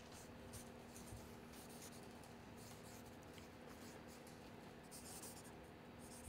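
Marker pen writing on a football shirt's fabric: faint, quick scratchy strokes that come and go as the letters and signature are written, over a steady low hum.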